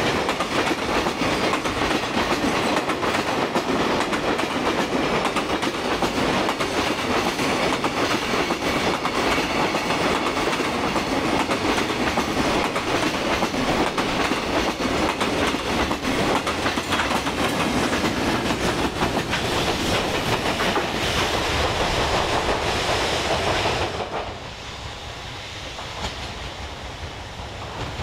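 Long freight train of container flatcars running past at speed: a loud, steady rumble and clatter of wheels over the rails. About four seconds before the end it cuts off abruptly to a much quieter, duller rumble.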